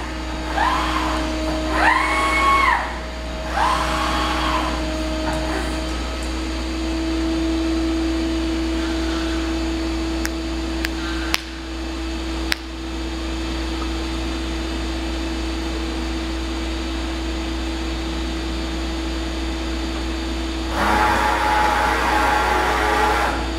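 Okuma MAB-80H horizontal machining center moving its axes: the servo drives whine in three short rising-then-falling sweeps in the first few seconds as the trunnion table tilts, over a steady machine hum. A few sharp clicks come around the middle, and a louder, many-toned motor whine sets in near the end.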